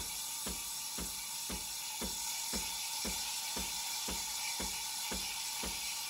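Breville Barista Express steam wand frothing milk in a stainless pitcher: a steady hiss of steam with the machine pulsing in short regular knocks about twice a second.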